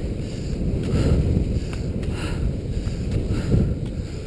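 Wind rumbling on the microphone over the hiss of skate skis gliding on snow, with a short scrape roughly once a second from the skating strides.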